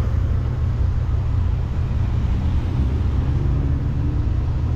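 Steady low rumble inside a car's cabin with the car stopped at a traffic light: engine idling under general cabin and traffic noise.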